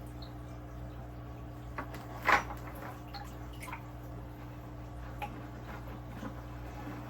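Water dripping and splashing as wet sand is scooped and tipped into a partly drained aquarium, with a few small drips and one louder splash about two seconds in, over a steady low hum.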